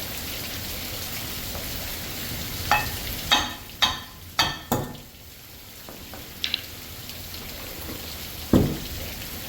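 Steady hiss of heavy rain, with a cluster of sharp knocks and clinks a few seconds in and a couple more later, from hand tools and metal parts while an electric motor is being taken apart.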